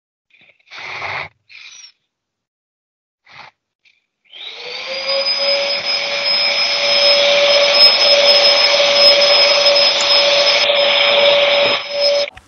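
A small electric motor switches on about four seconds in, its whine rising as it spins up, then runs steadily with loud rushing air for about eight seconds and cuts off suddenly just before the end. A few short soft knocks or rustles come before it.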